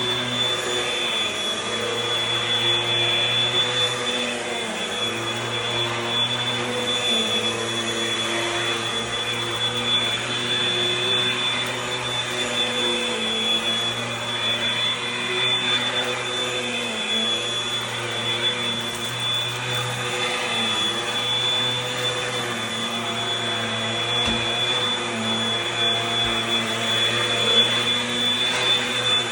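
Eureka Airspeed Gold upright vacuum cleaner running steadily with a high motor whine, its sound swelling and dipping slightly every few seconds as it is worked.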